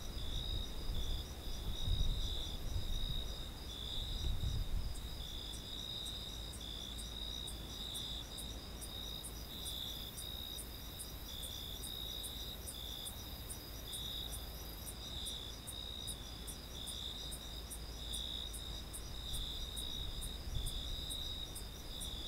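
Crickets calling in a steady chorus: an unbroken pulsing trill with a sharp, high ticking about twice a second over it. There is some low rumble in the first few seconds.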